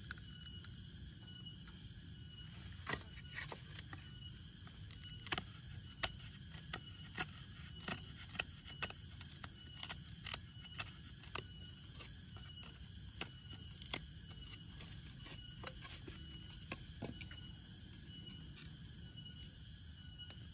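A knife blade cutting and tapping into bamboo: sharp, irregular clicks and knocks, about one or two a second, through the middle of the stretch. Under them, insects shrill steadily with a pulsing high buzz.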